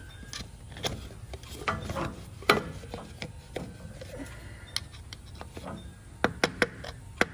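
Metal scraping and sharp clicks as a flat screwdriver is worked against the locking tab on a steering rack's inner tie rod to free it. Near the end comes a quick, regular run of sharp taps, about four or five a second.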